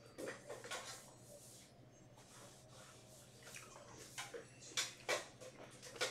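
Foil hockey-card pack wrapper crinkling in the hands as it is torn open and the cards are slid out: faint, scattered crackles and rustles, busiest in the first second and again in the last two.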